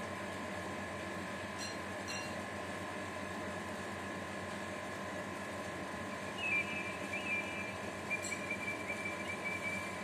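Steady hum with a few faint constant tones underneath. About six and a half seconds in, a thin high whistling tone joins and holds, with a few small bumps in loudness.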